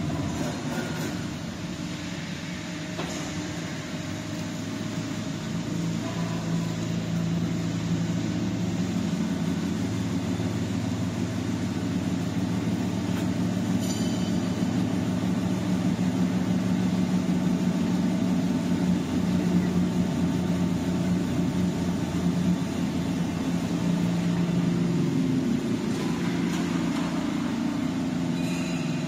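Electric gear motors and hydraulic lift of a stainless steel continuous frying machine running with a steady low hum during a test of the hydraulic mesh-belt lift. The hum grows a little louder over the first several seconds, with a few faint clicks.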